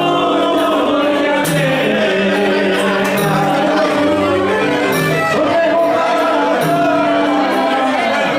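Live Greek folk music: a singer with instruments playing a steady dance tune over a repeating low note pattern.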